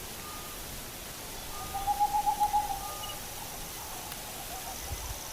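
Owl calling at night: short, even hoots repeated about every second and a half, with a louder, longer wavering call about two seconds in.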